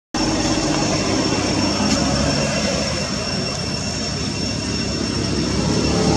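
Steady engine rumble, like a passing aircraft or vehicle, growing a little louder near the end, with a thin high-pitched drone held steady over it.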